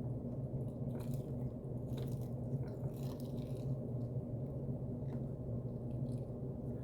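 Close-up chewing and biting of chicken wings, with crisp crunches about one, two and three seconds in and a few more near the end, over a steady low hum.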